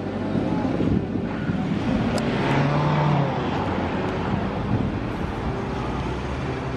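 Konstal 105Na tram set rolling slowly up to a stop over a steady hum of street traffic, with a swell in the noise around the middle.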